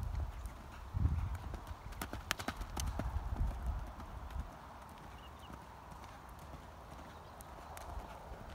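Hoofbeats of a quarter horse loping under a rider on dirt and grass: dull thuds, louder in the first half and fainter from about halfway through as the horse moves away.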